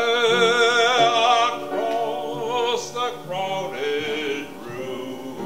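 A man singing solo with a wide vibrato. He holds one long note for about a second and a half, then goes on into the next phrase of the song.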